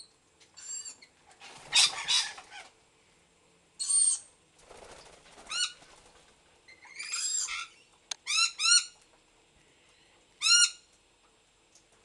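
Parrots calling: a sulphur-crested cockatoo and lorikeets. There is a harsh screech about two seconds in, then a run of short, shrill calls, with three close together past the eight-second mark.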